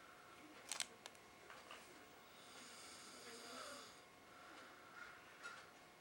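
A sleeping man breathing with a faint, soft snore, one long breath about halfway through. A few sharp clicks just under a second in.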